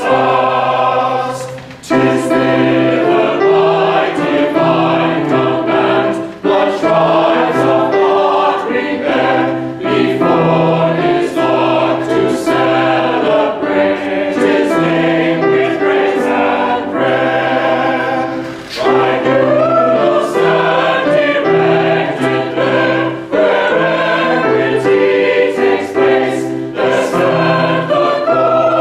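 Mixed choir of men and women singing a four-part metrical psalm hymn in sustained phrases, with short pauses for breath between lines.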